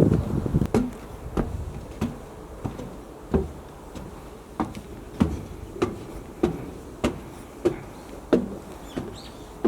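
A steady series of short knocks or thuds, about one every 0.6 seconds, over light background noise.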